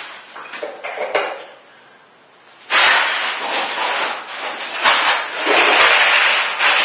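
A few light knocks, then about three seconds in a loud, continuous scraping and rubbing starts: wooden mosaic parquet panels being pushed and rubbed down by hand onto the glued floor.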